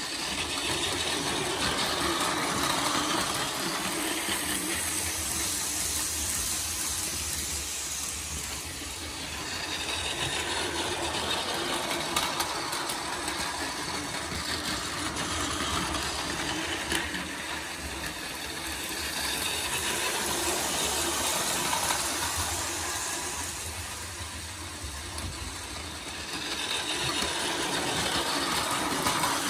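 Battery-powered Plarail toy train of the Kintetsu 80000 series Hinotori running on plastic track: a steady whirr of its small motor and gears with a rattle. It swells and fades several times as the train comes nearer and goes farther away, and grows louder again near the end as it passes close by.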